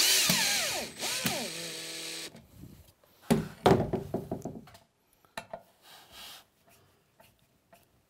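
Cordless drill driver driving a screw through the side fixing hole of a ceramic toilet pan into the floor bracket. Its motor pitch falls as the screw tightens, and it is then run in a few short trigger bursts to seat the screw gently without cracking the ceramic. Then a few knocks and rattles, and faint clicks.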